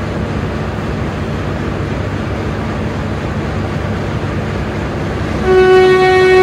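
A diesel passenger train stands at a station with a steady low engine rumble. Near the end a loud, steady single-note train horn starts and is held.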